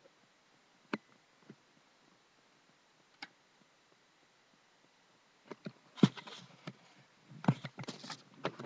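Camera handling noise: a few faint isolated clicks, then from about five and a half seconds in a run of knocks and rustling as the camera is moved about.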